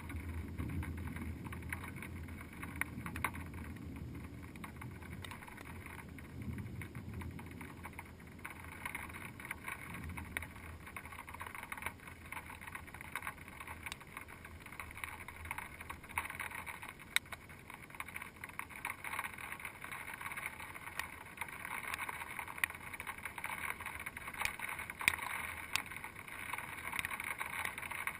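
Muffled outdoor storm noise heard through a GoPro's sealed waterproof housing: a steady hiss with scattered faint ticks, and a low rumble during the first several seconds.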